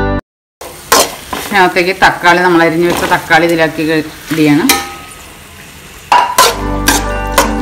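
Metal spatula stirring and scraping sliced onions in an aluminium kadai: irregular squeaky scrapes and knocks against the pan over a light frying sizzle. Soft background music comes back in near the end.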